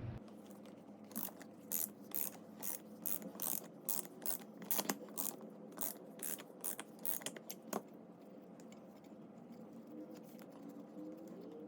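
A run of about twenty sharp metallic clicks, about three a second, from hand work on an antique bench vise. The clicks stop a little before eight seconds in.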